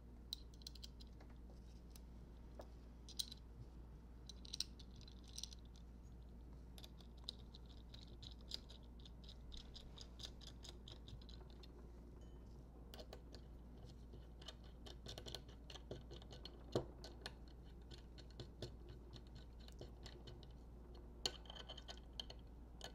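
Faint clicks and scrapes of small metal parts being handled: bolts and cone washers fitted into the black clamp pieces of motorcycle clip-on handlebars by hand. A steady low hum runs underneath.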